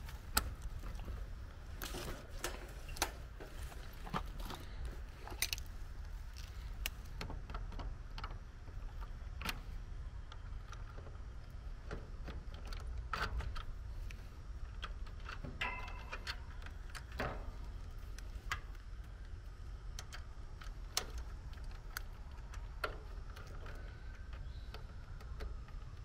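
Scattered sharp clicks and light rattles of multimeter test leads and wiring being handled in an air-conditioner condenser's electrical compartment during a capacitor check with the power off, over a steady low rumble.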